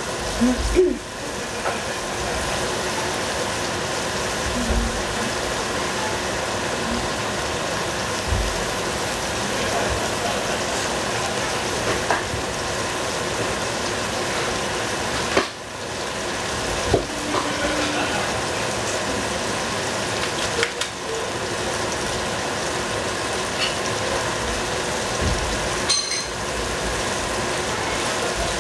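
Covered pan of green cauliflower sizzling steadily on the stove as it braises with cooking wine, with a few faint clinks.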